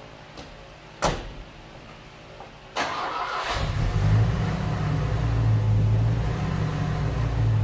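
A truck door slams shut about a second in. Near three seconds the Ford Ranger's 2.3-litre four-cylinder is cranked briefly, catches and settles into a steady idle, with its plug wires swapped 1-for-4 and 2-for-3 on the coil.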